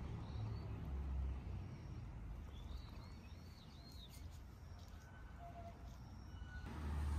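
Outdoor garden ambience: a low, gusting rumble of wind on the microphone, and a few seconds in a bird gives a quick run of four rising-and-falling chirps.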